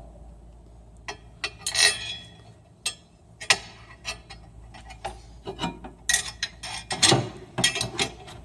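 Steel U-bolt and Y brackets clinking and knocking against each other and the steel frame as the U-bolt is threaded through the brackets: irregular metallic clicks and clanks, some with a short ring, thickest in the second half.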